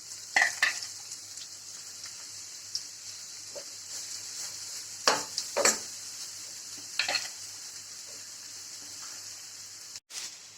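Chopped spinach sizzling steadily as it sautés in melted butter in a pan, with a spatula stirring and scraping the pan a few times: once about half a second in, twice around five to six seconds, and once around seven seconds.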